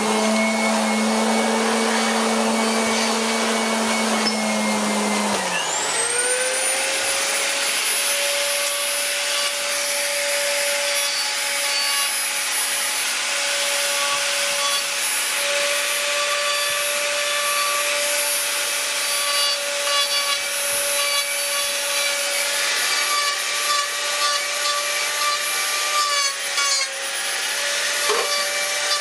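Small handheld electric rotary carving tool whining steadily while its burr grinds and scrapes the wood. About five seconds in the motor's pitch drops as it winds down, then it spins up to a higher steady whine and keeps cutting.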